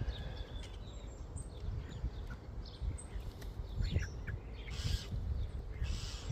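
Common starlings giving short, scattered chirps and calls over a low background rumble.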